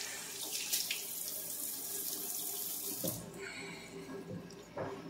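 Kitchen tap running into the sink as hands are washed under it, shut off abruptly about three seconds in; a couple of short knocks follow.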